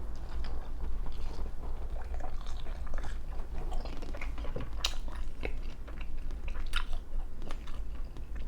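A person chewing a mouthful of thin-crust BBQ chicken pizza close to the microphone, with wet smacking and crust crunches, one sharper crunch about five seconds in and another near seven seconds.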